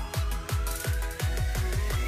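Electronic background music: a deep kick drum beating about three times a second and speeding up, under a synth tone that slides steadily upward, a build-up.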